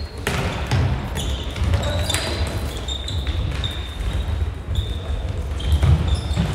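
Floorball play on a wooden sports-hall floor: rubber-soled shoes squeaking in short, high squeaks again and again, with sharp clacks of sticks and the plastic ball, echoing in the large hall.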